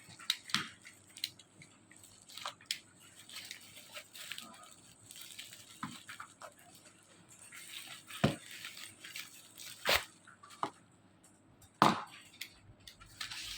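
Handling noise from objects being unpacked: scattered light clicks and taps, with three sharper knocks about eight, ten and twelve seconds in.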